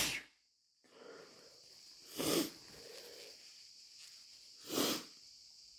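A person's sneeze dying away right at the start. Then there are two short, sharp sniffs, about two seconds in and again near the end, with faint breathing between them.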